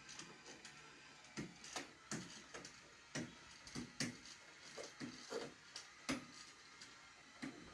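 Motorised smart curtain opener travelling along the curtain rod, pulling the curtains open. A faint motor whine runs under irregular clicks and knocks, about two a second, as the curtain rings and hooks slide and bump along the rod.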